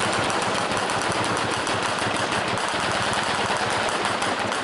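Twin-barrel anti-aircraft gun on a pickup truck firing one long continuous burst of rapid shots at aircraft.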